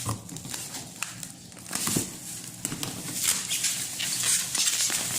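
Rustling and light clicking of phone packaging being handled and opened by hand.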